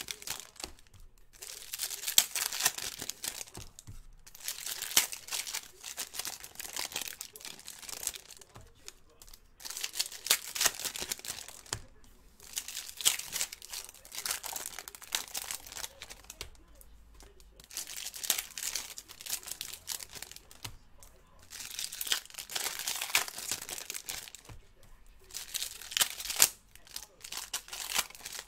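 Foil wrappers of 2017 Bowman's Best baseball card packs being torn open and crinkled by hand, in repeated bouts of a few seconds with short pauses between packs.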